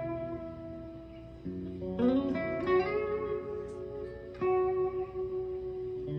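A '62 American Vintage Reissue Fender Stratocaster with a Warmoth neck and Ancho Poblano pickups, played through an amp: picked single notes and double-stops, with a string bend rising at about two seconds, then a long note left ringing from about four and a half seconds in.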